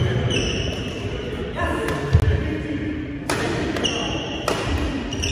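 Badminton rally in a sports hall with a sprung wooden floor: players' feet thud on the floor, court shoes squeak, and rackets strike the shuttlecock. The hall echoes.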